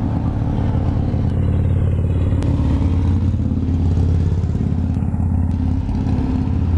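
A vehicle engine idling close by, a loud steady low hum, with a single faint click about two and a half seconds in.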